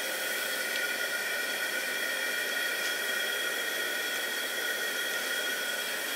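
Propane turkey-fryer burner firing steadily into a firebrick kiln: a constant hiss with several steady high whistle-like tones over it.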